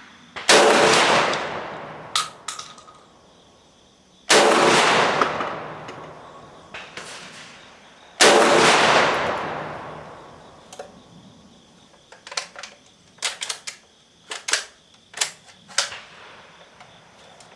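Three shots from a Centurian BP12 gas-operated 12-gauge bullpup shotgun firing slugs, about four seconds apart, each echoing away over a couple of seconds. Later comes a run of sharp metallic clicks and clacks as the gun is handled.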